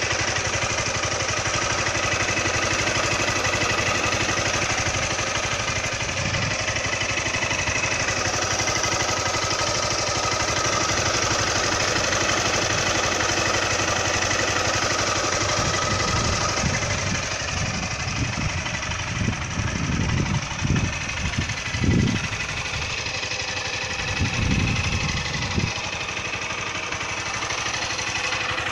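Honda CG 160 Titan single-cylinder four-stroke engine idling with a loud, rapid valve tapping, which the owner takes for valves needing their clearance adjusted at the 6,000 km service. Irregular low rumbles come and go over the last third.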